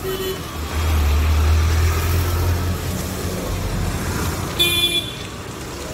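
Road traffic on a wet street: a vehicle's engine rumbles close by through the first couple of seconds, and a car horn gives a short honk near the end, with the tail of another honk at the very start.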